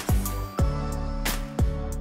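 Intro music with a slow beat: deep kick drums that drop in pitch, sharp snare-like hits and sustained chords.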